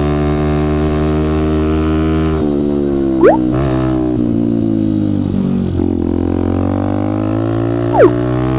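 Benelli TNT 125's small single-cylinder four-stroke engine pulling up a steep hill, its pitch sagging under the load and then climbing again in the second half. Two short whistle-like sweeps cut across it, one rising about three seconds in and one falling near the end.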